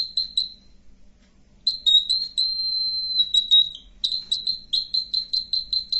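Buzzer in a BC547-and-LDR light-sensor circuit sounding a high-pitched tone, triggered by light falling on the LDR. It cuts out for about a second, comes back steady, then from about four seconds in breaks into rapid beeps, about five a second.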